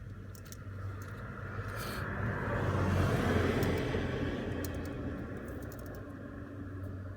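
A passing vehicle: a smooth rush that swells to its loudest about three seconds in and fades away, over a steady low hum.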